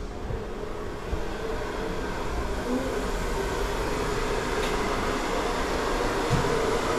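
Steady mechanical whirring with a constant hum, growing a little louder after a few seconds, with a few light knocks.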